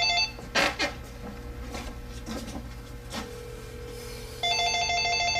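Telephone ringing with a rapid electronic trill, in two-second rings. One ring cuts off just after the start, and the next begins about four and a half seconds in.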